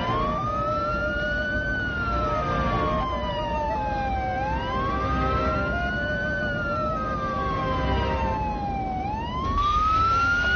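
Ambulance siren wailing: each cycle climbs quickly in pitch, then falls more slowly, repeating about every four and a half seconds over a low vehicle rumble.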